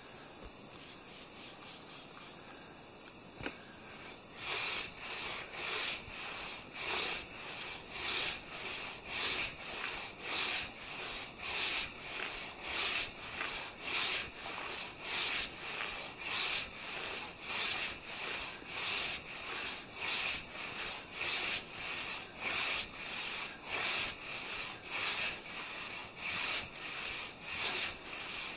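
Hand saw cutting through a downed maple log, starting about four seconds in with steady back-and-forth rasping strokes, roughly one and a half a second.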